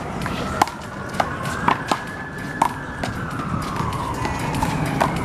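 Sharp smacks of a big blue rubber handball being hit by hand and rebounding off the wall in a one-wall handball rally, about six in all: several close together in the first three seconds and one more about five seconds in. A faint high tone rises and slowly falls behind them.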